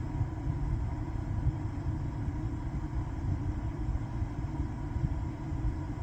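Steady low rumble of background noise with no distinct events.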